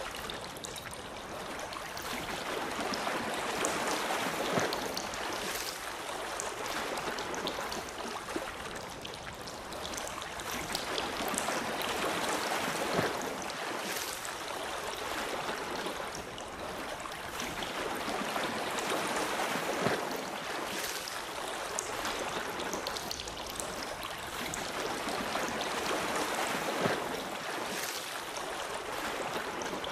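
Rushing water, a steady hiss that swells and fades slowly every several seconds, with a few sharp clicks on top.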